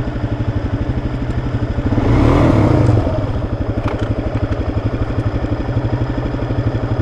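Kawasaki KLX300 dual-sport motorcycle's single-cylinder four-stroke engine running at low speed with an even, rapid pulse, briefly getting louder about two seconds in, as if revved, then settling back.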